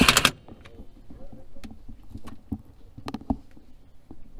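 A loud power tool stops about a third of a second in. After it come scattered light clicks and knocks of an aluminium brace bar and its bolts being handled and fitted against the car's underside.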